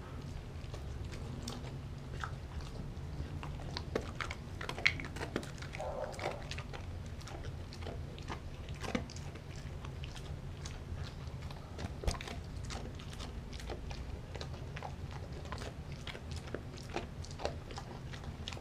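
A German Shepherd mix dog chewing and biting scraps of raw dog food, with many irregular crunches and clicks of teeth over a low steady hum. The sharpest crunch comes about five seconds in.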